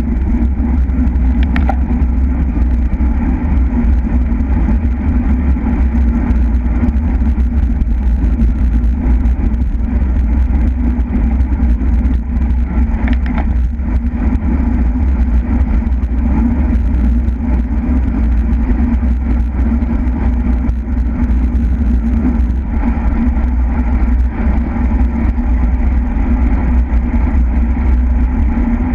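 Wind rushing over the microphone of a camera on a racing bicycle at speed: a steady, loud low rumble.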